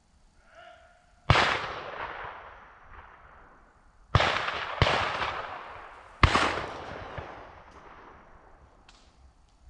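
Four shotgun shots: one about a second in, then two close together about half a second apart, then a fourth about a second and a half later. Each rings off in a long rolling echo.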